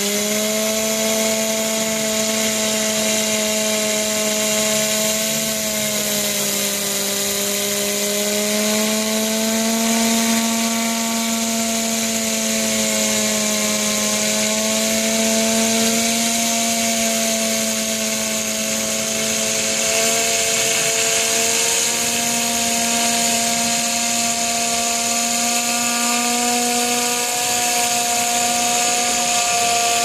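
Vacuum motor of a carpet extraction cleaner running with a steady whine, its pitch shifting slightly as the suction nozzle is worked over car carpet. A steady hiss of air runs over it.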